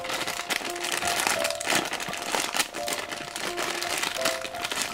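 Clear plastic bag crinkling as hands squeeze and handle it, a steady, fairly loud crackle, over a simple background tune with held notes.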